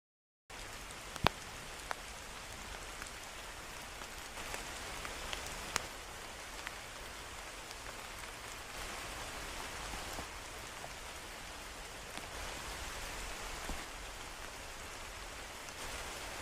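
Steady rain falling, with a few louder single drops striking close by, the sharpest about a second in. The sound cuts in suddenly half a second in.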